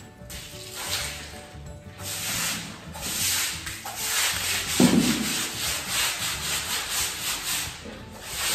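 A stiff broom scrubbing a wet, soapy tiled floor in quick, regular strokes, about three a second. Partway through comes one louder splash of water.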